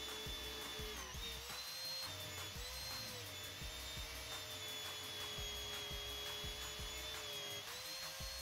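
Bench drill press boring a hole in a steel plate held in a machine vise. Its motor whine dips in pitch as the bit bites harder, about a second in, at two and a half seconds and again near the end, and recovers each time.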